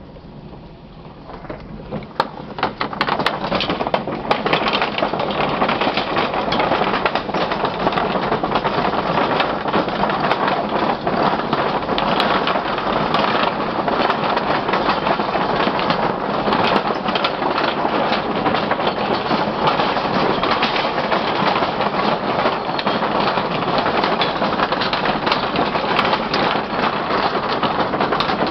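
Loose, unnailed wooden deck boards of a swinging suspension bridge clattering and knocking continuously under a car's tyres as it drives across, heard from inside the car. The rattle builds up about two seconds in and then runs on as a dense racket of knocks.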